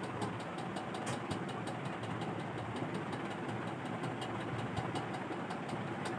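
Steady background hum, machine-like, with a rapid, even ticking running through it.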